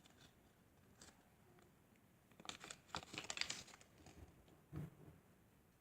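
Faint rustling and crinkling of packaging being handled, in a short cluster of crinkles about halfway through, with a soft knock near the end.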